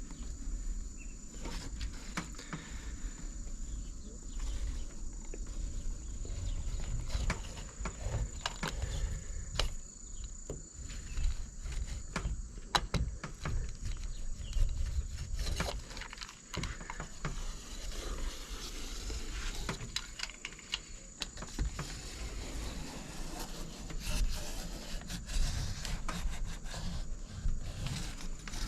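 Irregular clicks, taps and rubbing from hand work on a window-screen frame, as vinyl spline is pressed into the frame's channel over the mesh, with a low rumble underneath. A steady high thin tone runs throughout.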